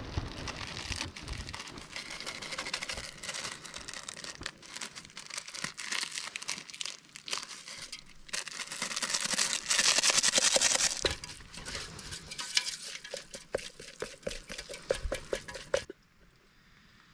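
Plastic noodle seasoning sachet crinkling as it is torn open and emptied, then a utensil stirring and scraping in a metal billy of noodles with many small clicks. The sounds stop about a second before the end.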